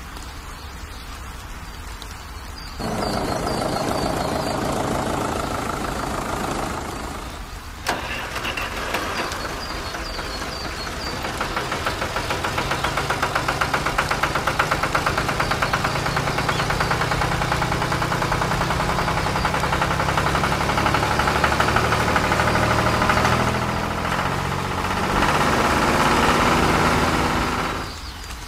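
Steady rain hiss. About three seconds in, a tractor's diesel engine sound cuts in and runs, with a brief dip and a click around eight seconds. From about twelve seconds it runs with a fast, regular pulse, then stops shortly before the end, leaving the rain.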